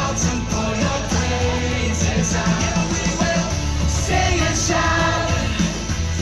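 Mixed amateur choir singing a Christian praise song in unison over an amplified backing track with a strong held bass.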